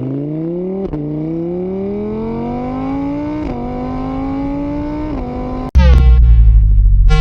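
A car engine accelerating through the gears, its pitch climbing and dropping back at each of three shifts. Near the end loud music with heavy bass cuts in suddenly.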